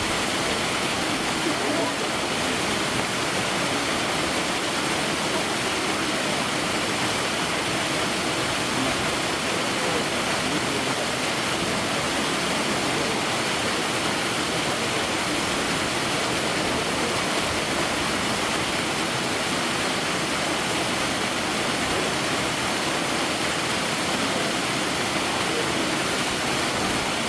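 Steady rush of running water, even and unbroken, with a faint murmur of voices underneath.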